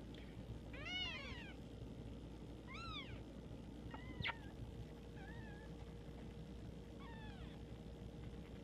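Cat meowing: a series of about five short, faint, high meows, one every second or two.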